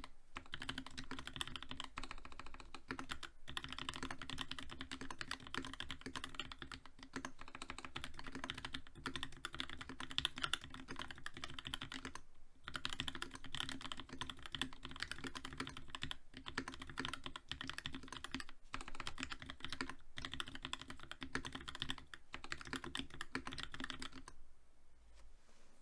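Fast, continuous typing on a TX87 mechanical keyboard with a brass plate, lubed linear Gateron FEI switches in Cherry Black top housings, and GMK ASCII keycaps, with no sound-dampening foam. Brief pauses every few seconds, and the typing stops near the end.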